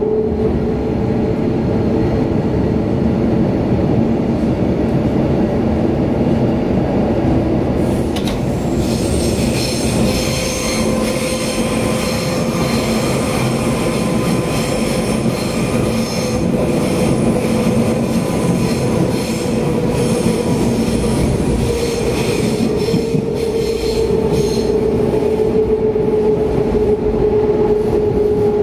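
A DB Class 420 S-Bahn electric multiple unit running at speed, heard from inside the passenger car: a steady whine over the rumble of the wheels on the track. The whine rises a little about ten seconds in and falls back later. A high, layered squeal joins about eight seconds in and dies away a few seconds before the end.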